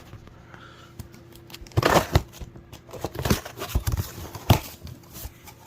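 Packaging being handled: scattered knocks and rustles, with a busier cluster about two seconds in and a few sharp knocks later.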